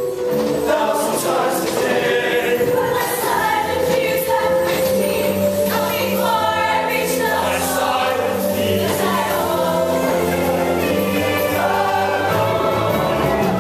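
Mixed-voice high-school show choir singing long held chords over a steady low backing.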